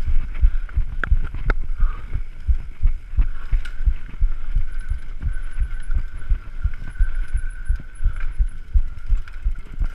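Mountain bike rattling and thumping over a rough dirt trail on a fast descent: a rapid, irregular run of low knocks from the bike frame and camera mount, with a few sharper clanks.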